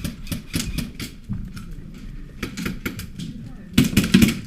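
Scattered knocks and clicks of movement and gear, then near the end a sudden burst of rapid, evenly spaced cracks from an airsoft electric gun firing on full auto.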